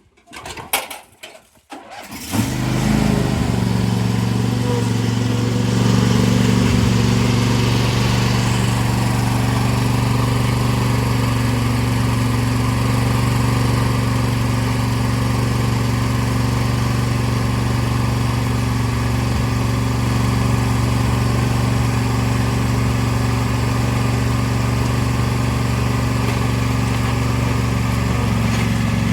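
A few clicks and knocks, then about two seconds in the swapped-in 24 hp engine of a John Deere 165 Hydro lawn tractor starts and runs steadily at an even speed.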